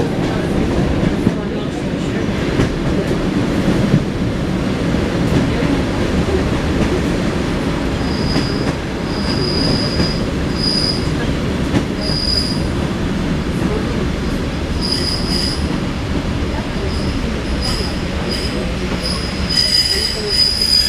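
Wheels of an ED9M electric commuter train rumbling and clattering over the rails, heard from inside the carriage. From about eight seconds in a high thin squeal comes in short bursts, turning almost steady near the end.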